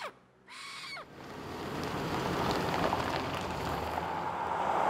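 Road traffic on a highway: vehicle engine and tyre noise building steadily as a vehicle approaches, loudest near the end.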